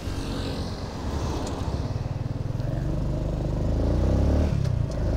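Motorcycle engine pulling away and accelerating, its note rising in pitch and getting louder, with a brief drop near the end.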